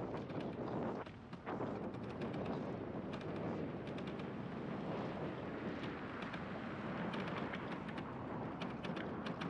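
Wind rushing over a helmet-mounted microphone on a moving scooter, a steady rushing noise with many short crackles of wind buffeting, easing briefly about a second in.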